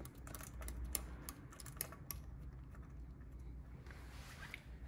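Faint, irregular small clicks and taps of a screw and metal parts being handled as the screw is fitted by hand into a motorcycle air cleaner's backing plate, over a low steady hum. The clicks thin out near the end.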